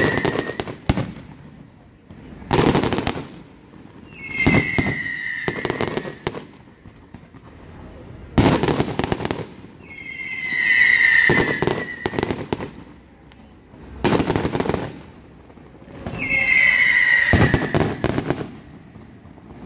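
Fireworks display: aerial shells bursting in a string of loud booms and crackles. A high whistling tone that falls slightly in pitch sounds about every six seconds, four times in all.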